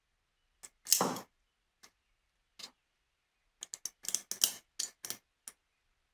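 Small metal clicks and taps from handling tiny brass lighter parts with tweezers. One louder, longer clatter about a second in, then a quick run of clicks between about three and a half and five and a half seconds.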